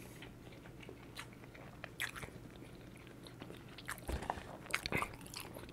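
Close-miked chewing of a mouthful of steak burger: faint, wet mouth clicks and smacks, sparse at first and coming more often about four seconds in.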